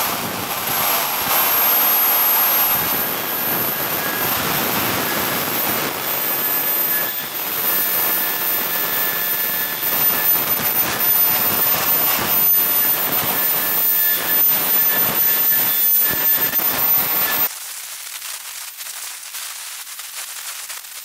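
Swiwin 170 N model jet turbine running steadily at part throttle, about 100 newtons of thrust: a loud rushing roar with a thin high-pitched whine. About three-quarters of the way in the roar cuts off suddenly, leaving quieter crackling noise.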